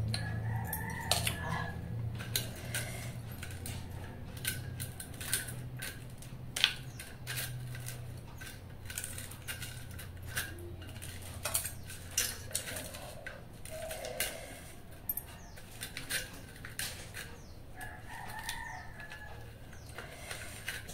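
Eating by hand from steel bowls: water-soaked rice (pakhala) being mixed and scooped, with scattered clicks and clinks of steel dishware and bangles. Chickens call faintly in the background about a second in and again near the end.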